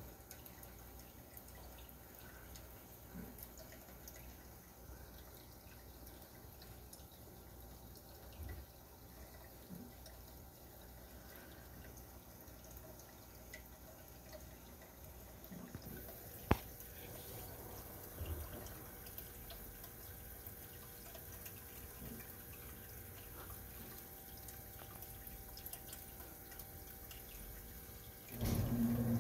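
Faint trickling and dripping of aquarium water, with a single sharp click about halfway through. Near the end a louder steady hum sets in.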